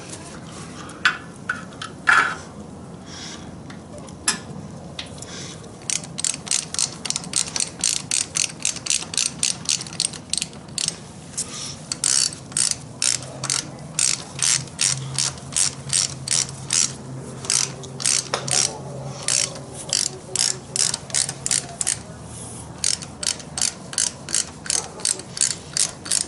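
Hand ratchet wrench being cranked to run fasteners down, a long series of even pawl clicks at about three a second with a few short pauses, after some separate knocks of tools on metal in the first seconds.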